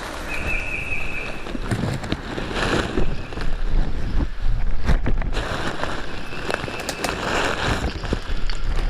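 Wind buffeting the microphone with a low rumble and swelling rustle, broken by scattered knocks. A short, steady high-pitched trill lasts about a second near the start.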